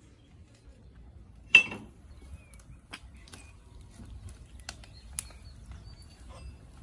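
One sharp click about a second and a half in, then a few fainter scattered clicks and ticks over a low steady rumble.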